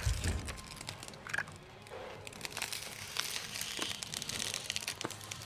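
SIGA Rissan tape and the SIGA Majrex membrane crinkling and crackling as the tape is pulled from the roll and pressed down over a membrane seam, with scattered short crackles. A dull thump right at the start.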